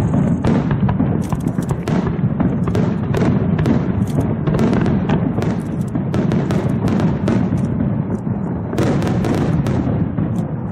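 Fireworks display: a dense, unbroken run of bangs and crackles over a low rumble.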